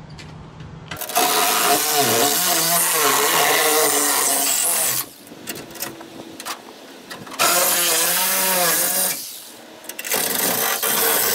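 Corded reciprocating saw cutting through rusty sheet steel on a 1960 VW Beetle's front apron, in three runs with short pauses between them as the cut is repositioned; the motor's pitch wavers as the blade bites.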